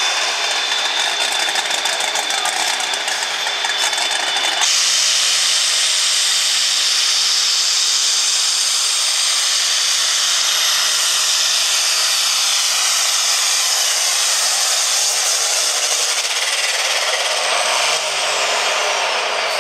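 Turbocharged diesel engine of a light super stock pulling tractor at full throttle under load: a loud, steady, high-pitched mechanical drone with a thin turbocharger whine. The sound changes abruptly about four and a half seconds in as a second tractor takes over.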